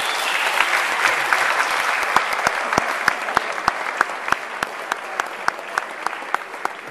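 Audience applauding, the crowd's clapping tapering off gradually, while one pair of hands close by keeps clapping steadily at about three claps a second.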